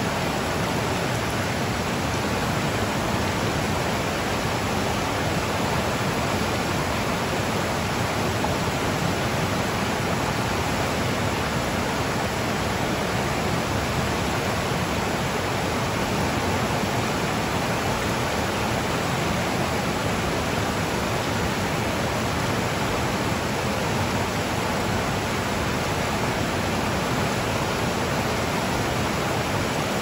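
River rapids: white water rushing over and around rocks, a steady, unbroken rush.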